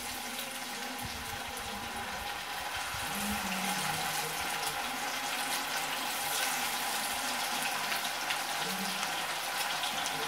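Anchovies coated in chilli masala sizzling in hot oil as they shallow-fry in a kadai: a steady crackling hiss, a little louder from about two seconds in.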